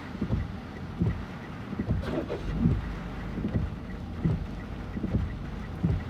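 Typhoon wind and rain noise, with a regular low thump a little more than once a second.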